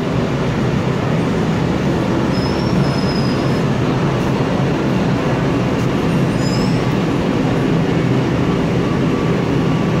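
Shenzhen Metro type A aluminium-bodied electric train (Changchun Railway Vehicles) rumbling steadily along the platform as it runs into the station. Two brief high squeals come about two and a half and six and a half seconds in.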